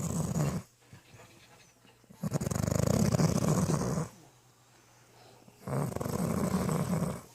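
Loud snoring: long rasping snores about three and a half seconds apart, with quiet breathing between them.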